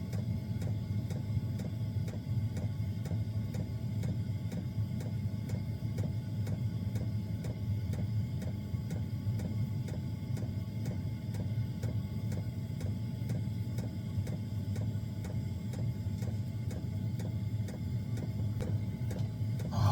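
Small diesel air heater running steadily: a low combustion-and-fan hum with its fuel pump ticking evenly about four times a second.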